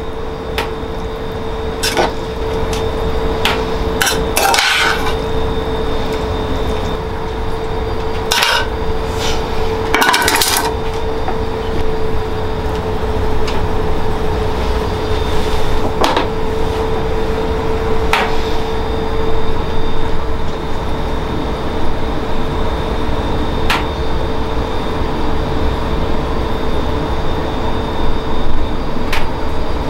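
Steady low kitchen roar with a constant hum, broken by about nine short sharp knocks and clinks of metal tongs against the frying pan and serving bowl.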